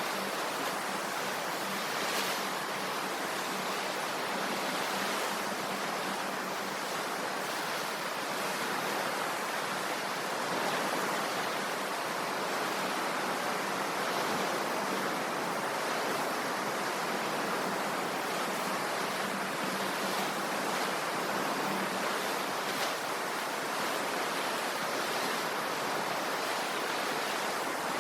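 Sea waves washing on the shore, a steady, even rush of surf without distinct breaks.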